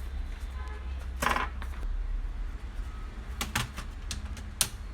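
A few sharp clicks and a short clatter of small hard objects being handled, spaced a second or more apart, over a steady low hum.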